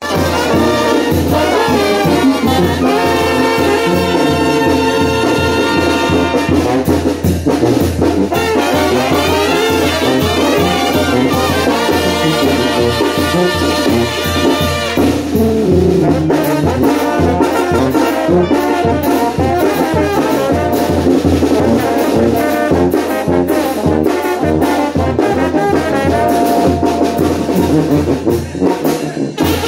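Brass band music: trumpets and trombones playing held notes and phrases over a steady bass beat.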